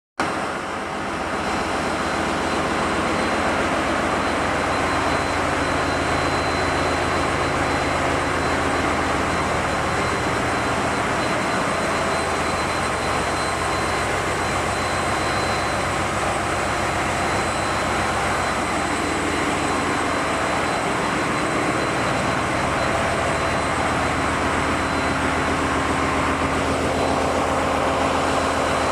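Steady, loud machinery din of running diesel generator engines, with a constant low hum and a thin high whine over a dense wash of noise.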